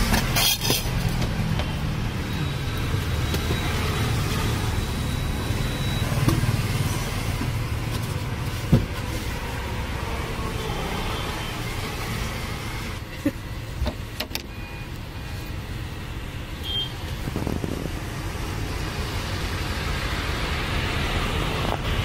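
A steady low background rumble, with a few sharp knocks, the loudest about nine seconds in.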